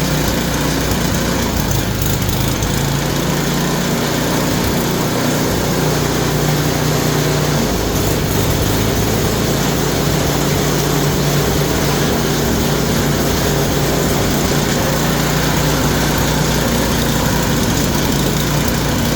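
Yard Machine snowblower's small gasoline engine running steadily at a constant speed, running okay after an adjustment.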